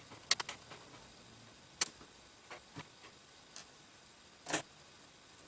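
Irregular small clicks and taps of a screwdriver driving motherboard screws into the case standoffs, with a quick cluster of clicks near the start and a slightly longer rattle near the end.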